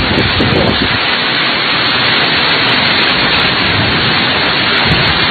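Heavy rain of a summer thunderstorm coming down hard, a loud steady rush of noise.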